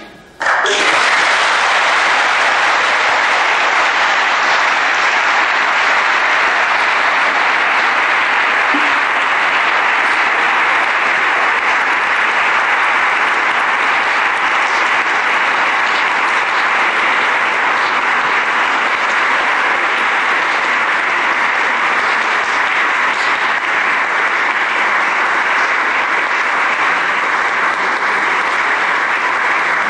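Concert hall audience applauding loudly and steadily. The applause breaks out suddenly about half a second in, as the last held note of the kamancheh dies away.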